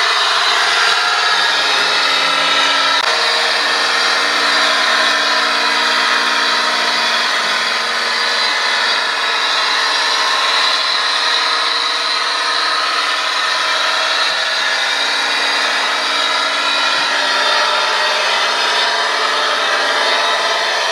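Remote-controlled Claas Xerion model tractor driving, its electric drive motor and gearbox giving a steady whine over a constant hiss. The pitch shifts about three seconds in and again near the end.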